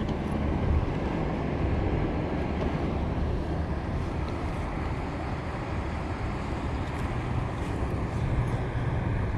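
Steady rushing noise of wind buffeting the microphone over flowing river water.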